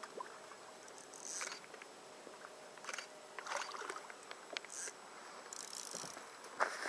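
Fly reel and line being worked while fighting a hooked fish: scattered short rasps and clicks, about one every second.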